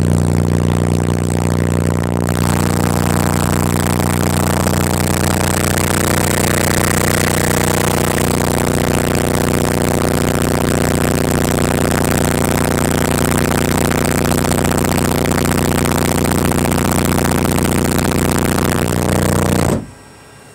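Two Soundstream XXX 15-inch subwoofers playing a steady 30 Hz test tone at high power at a 1 ohm load, heard inside a sealed truck cab as a loud drone of stacked overtones. It turns harsher and noisier about two seconds in as the level is turned up, and cuts off suddenly about a second before the end.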